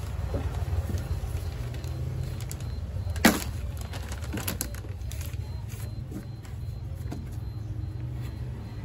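A single sharp knock about three seconds in, with a few lighter clicks, from handling the stripped car door and its lowered glass, over a steady low rumble.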